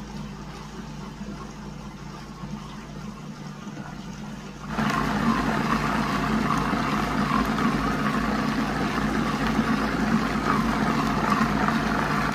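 Countertop food processor motor running steadily, its blade whirring raw fish into a paste for fish balls. The sound gets noticeably louder a little under halfway through.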